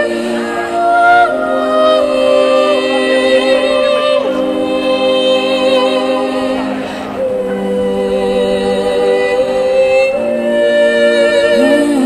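Woman singing through a microphone and small busking amplifier, long held notes with vibrato over several other sustained vocal notes layered beneath, in the manner of a live vocal loop.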